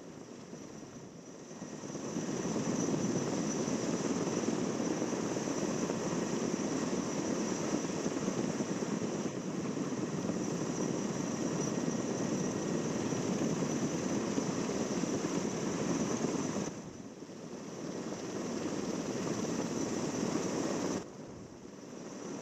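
Erickson S-64 Aircrane heavy-lift helicopter's rotor and twin turboshaft engines running steadily, a dense drone with a thin high whine over it. The sound swells about two seconds in and drops off abruptly twice near the end.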